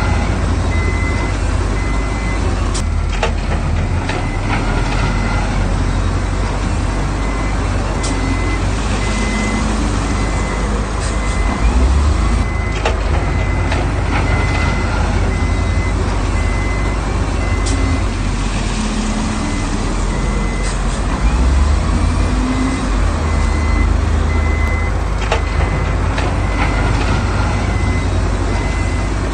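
Heavy construction machine's diesel engine running under load while a reversing alarm beeps in an even on-off pattern, with scattered knocks and clanks.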